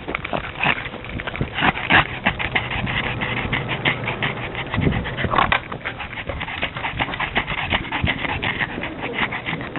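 Pug panting fast and breathing noisily, a rapid run of short rasping breaths: the sound of a pug overheated in the heat.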